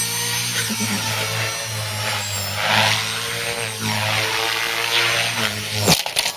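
Radio-controlled model's motor running steadily at a near-constant pitch, with rushes of noise swelling and fading over it. It cuts off about six seconds in.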